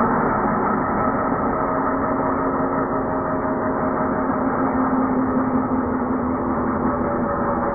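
Milwaukee M18 cordless 6½-inch circular saw running steadily under load as its blade cuts through a 2x4. The cut goes slowly, and the owner feels the saw needs more RPM.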